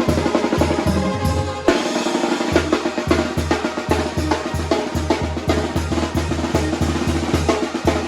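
Banda sinaloense, a Sinaloan brass band, playing a lively son: snare and bass drum beat a steady, fast rhythm under sustained brass chords. The low end drops out briefly about two seconds in, then the beat picks up again.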